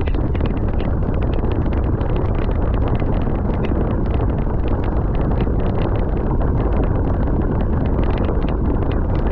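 Heavy wind buffeting the microphone during a fast downhill descent, with a constant patter of rattling clicks throughout.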